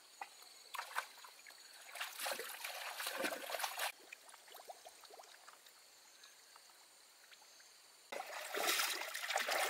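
Scattered small splashes and trickling water, then a few seconds of near quiet, then louder, continuous splashing that starts suddenly about eight seconds in.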